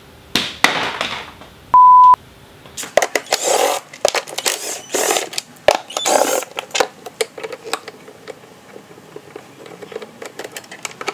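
Plastic and metal being handled as a scooter's under-seat storage bin is unbolted: several short scraping, rustling bursts, then a run of small clicks from the tools. A short, loud steady beep sounds about two seconds in.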